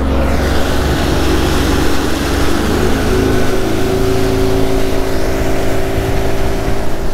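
Yamaha outboard motor driving a bass boat at speed across open water, its engine note rising a little about three seconds in, with wind and spray rushing past.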